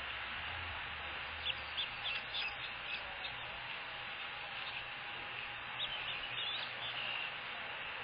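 Day-old osprey chicks peeping: short, high chirps in two clusters, about a second and a half in and again around six seconds, over the steady hiss of the nest camera's microphone.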